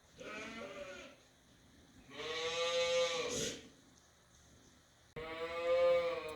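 A farm animal bleating three times, each call drawn out for about a second, the middle one the loudest.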